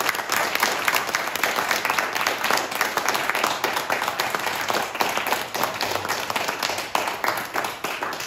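Audience applauding: many hands clapping in a dense, steady patter that thins a little toward the end.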